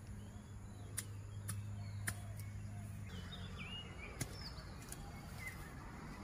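Faint outdoor ambience: a few short bird chirps, several sharp clicks, and a low steady hum that stops about three seconds in.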